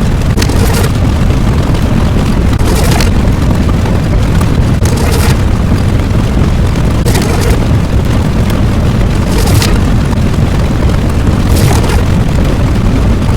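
Loud, continuous rumbling sound effect with a crashing boom about every two seconds.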